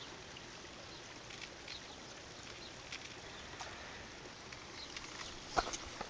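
Faint, steady outdoor background noise with a few small ticks, and a sharper knock a little before the end.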